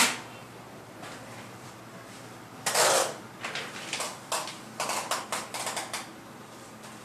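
Clear adhesive tape ripped off the roll and paper handled as posters are taped to a wall: a burst right at the start, a loud rip about three seconds in, then a quick run of short rips and crinkles.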